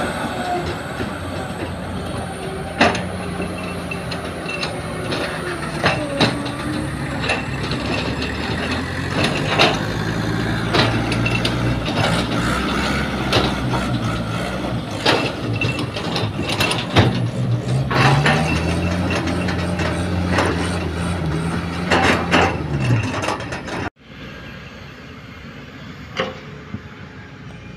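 Loaded light dump trucks running and revving as they crawl over rough, rutted mud, with frequent sharp clanks and rattles. About 24 seconds in the sound drops suddenly to a quieter, steady machine background with an occasional knock, from an excavator digging at a distance.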